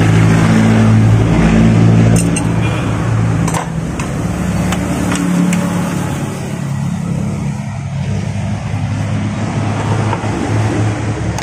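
A motor vehicle engine running steadily at a low, even idle, easing off a couple of seconds in, with a few sharp metallic clicks from tools on the wheel hub.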